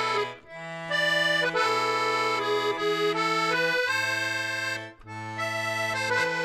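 Instrumental background music: a melody over bass notes that change about once a second, with two short breaks about half a second and five seconds in.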